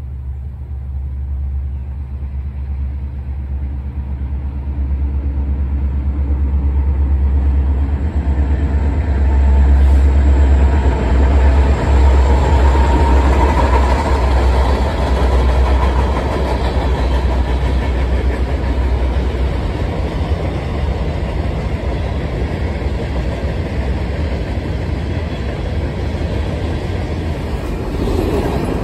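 Freight train passing: a deep diesel locomotive drone swells over the first ten seconds or so and then fades, giving way to the steady rumble and rail noise of covered hopper cars rolling by close.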